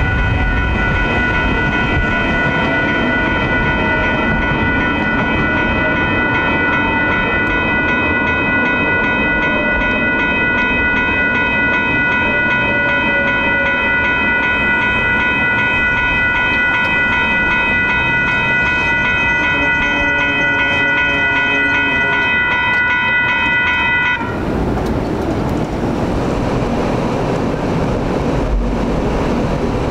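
Sacramento RT light rail train passing through a grade crossing, its traction motors whining in shifting, stepped tones under a steady high-pitched tone. The high tone cuts off abruptly about 24 seconds in, leaving only general rumble and traffic noise.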